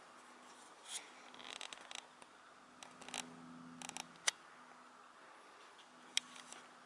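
Faint scattered clicks and short rustling sounds over a low hum that comes and goes. The two sharpest clicks fall about four and six seconds in.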